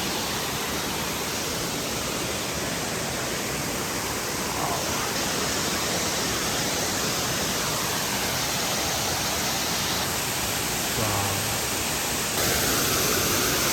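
Steady rushing of a waterfall and its fast-flowing jungle stream, a little louder from about twelve seconds in.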